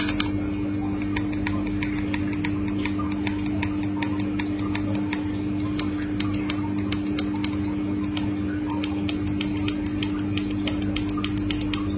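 Rapid small clicks, several a second, over a steady electrical hum.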